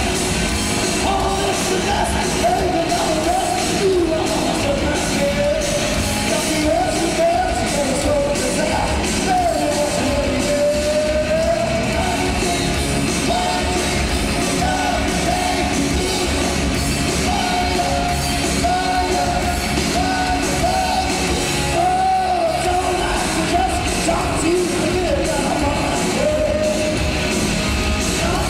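Hard rock band playing live, with a sung lead vocal over electric guitars, bass and drums.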